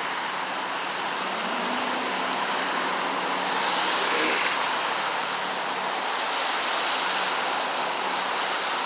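Steady road traffic noise as cars pass, with the tyre and engine noise swelling as vehicles go by about four seconds in and again near seven seconds.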